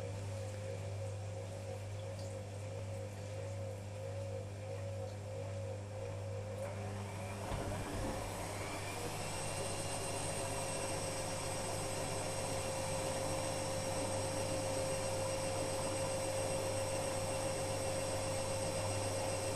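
Privileg Sensation 9415 washing machine's drum motor running: at first a wavering whine at low speed, then about eight seconds in it speeds up with a rising whine and settles at a steady, higher whine over a low hum.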